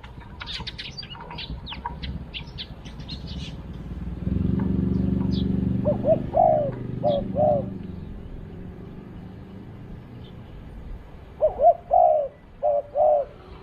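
Spotted doves cooing: two phrases of several curved coo notes each, about 6 s and 11.5 s in. High, short chirps of small birds fill the first few seconds, and a low engine drone runs from about 4 to 8 s.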